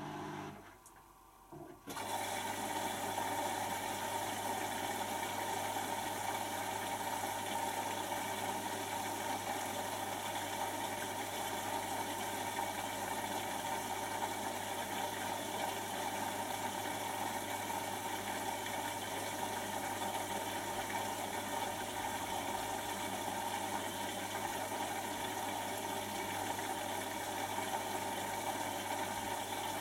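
Washing machine mid-cycle: the drum motor stops about half a second in, and about a second later the drain pump starts, a steady electric hum with water rushing through it as the wash water is pumped out.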